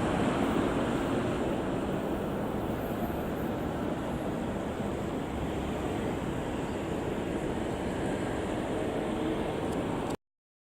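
JR E721 series electric train running on the track, a steady low rumble and rushing noise that fades slowly, mixed with wind on the microphone; it cuts off suddenly near the end.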